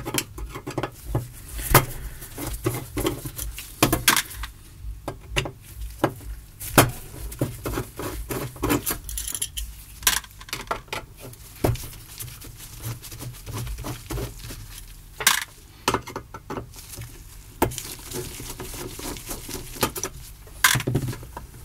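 Irregular metallic clicks, clinks and taps as screws are taken out and metal parts of an Alesis Midiverb effects unit are handled during disassembly.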